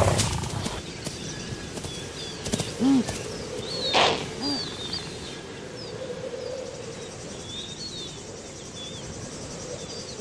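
Outdoor wildlife ambience: small birds chirping and twittering over a steady background hiss. Two short low calls come around three and four and a half seconds in, with a brief rustle about four seconds in.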